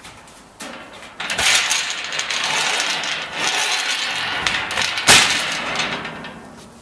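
Mesh metal cage panel of an air-conditioner security cage sliding in its channel, a long metallic scrape and rattle with a click near the start and a louder clank about five seconds in.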